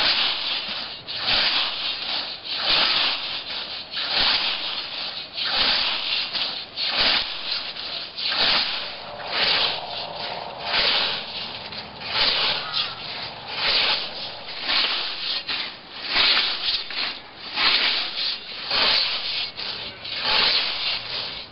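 Scythe blade swishing through long grass in quick, regular mowing strokes, roughly one a second.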